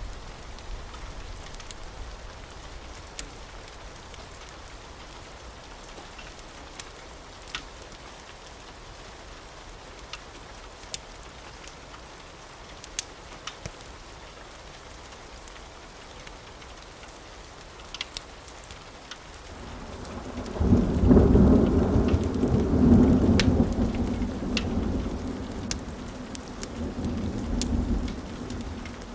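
Steady rain with scattered sharp ticks. About twenty seconds in, a roll of thunder builds, is loudest for a few seconds, then rumbles away toward the end.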